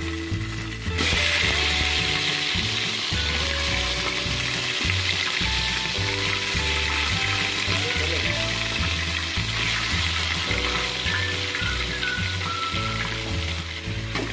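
Chicken pieces sizzling as they fry in hot groundnut oil. The sizzle swells about a second in and then holds steady, over background music.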